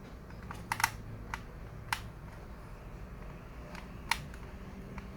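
Sharp small clicks and taps of hard plastic and metal parts and screws being handled while a laptop is taken apart. About six separate clicks: a quick cluster just under a second in, then single ones at about one and a half, two and four seconds.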